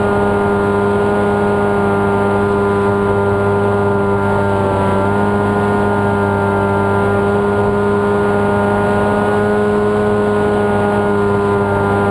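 Electric motor and propeller of an FPV flying wing heard from its onboard camera, running at a steady throttle as a constant pitched hum over wind noise; the pitch shifts slightly about four to five seconds in.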